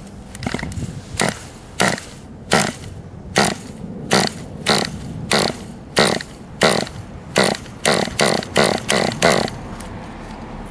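Small nitro engine of a Kyosho RC buggy being cranked over in short pulls, about fourteen buzzy bursts in quick succession. The engine does not catch and run.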